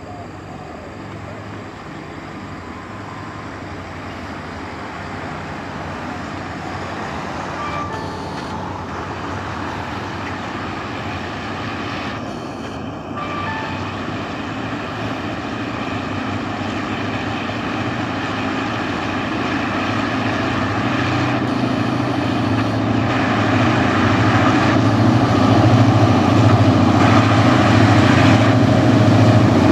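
Diesel locomotive hauling a passenger train approaching, its engine growing steadily louder as it nears.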